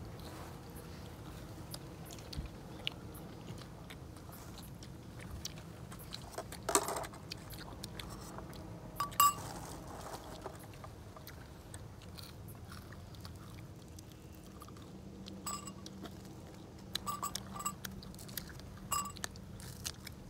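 People eating fried bondas close by: chewing and crunching bites, with scattered small clicks and two louder sharp sounds about seven and nine seconds in, over a faint steady low hum.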